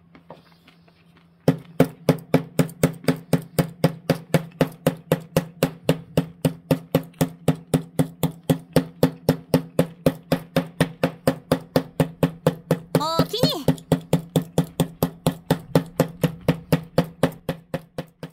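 Wire brush scrubbing back and forth across small wooden tiles, about three and a half even strokes a second, starting about a second and a half in, with a short squeak partway through. It is roughening the wood grain so the tiles look like stone.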